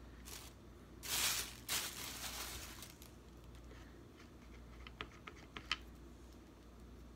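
Rustling handling noise for about two seconds, then a few light, sharp clicks, like small objects being handled close to the microphone.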